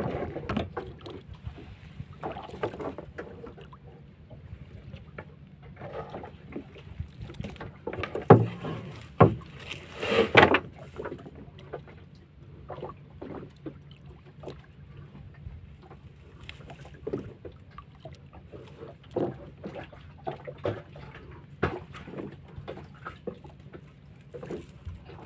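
Gill net being handled over the side of a small boat: nylon mesh rustling and plastic floats knocking against the hull, in many short irregular knocks. Three louder knocks come about eight to ten seconds in, over a steady low hum.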